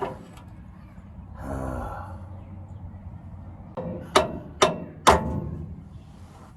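Three sharp metallic strikes about half a second apart, ringing briefly, from tools working on a truck's steering Pitman arm, preceded a couple of seconds earlier by a short breathy grunt of effort.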